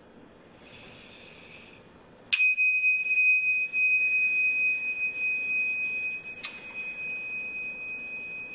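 Tingsha cymbals struck together about two seconds in, leaving a long, steady, high ringing tone. A second clink comes about four seconds later while the ring carries on.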